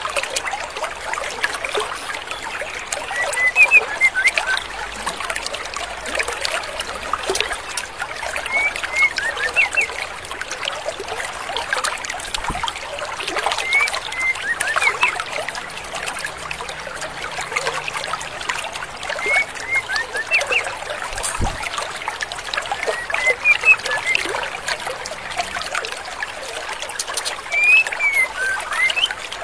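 Stream water running steadily, with short clusters of high chirping calls about every five seconds, six times in all. The calls are offered as a female white-rumped shama's, played as a lure call to provoke male shamas into singing.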